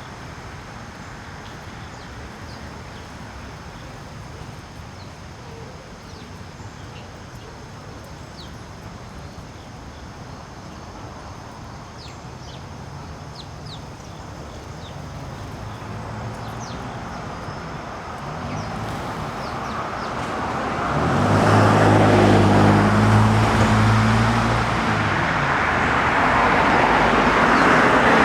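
Road traffic noise with faint, scattered bird chirps over it. About twenty seconds in, a motor vehicle's engine and tyres grow loud as it passes close, and the traffic stays loud after it.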